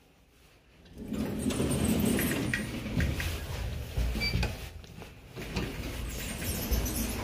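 Landing doors of a 1998 LG Industrial Systems elevator sliding open with a scratchy rattle starting about a second in, with a few dull thumps as someone steps through into the car.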